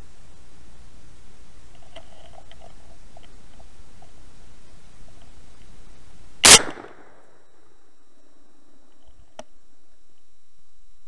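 A single loud rifle shot from a Benelli Argo semi-automatic rifle, fired at a wild boar, about six and a half seconds in, with a short ringing tail. A steady hiss runs before it, and a faint click comes about three seconds after the shot.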